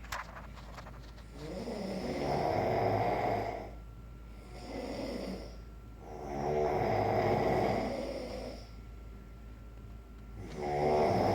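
Loud, rasping snoring by a sleeping person: a long snore about every four and a half seconds, with a softer breath in between.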